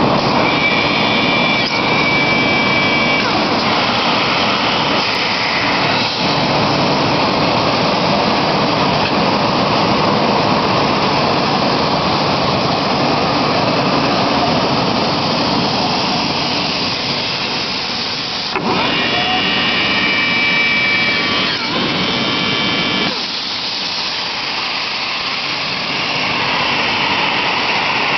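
Homag BAZ CNC machining centre running its edgebanding unit around a circular panel: steady machine noise with high whining tones from its motors. The sound changes about 18 and 23 seconds in.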